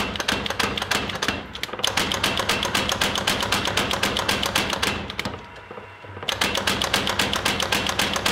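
Power hammer striking a glowing steel bar held in tongs, several rapid blows a second in runs. The blows break off briefly about a second and a half in and again around five seconds in, then resume.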